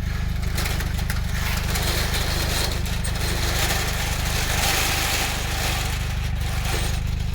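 A vehicle engine running steadily, with a loud, even hiss over it.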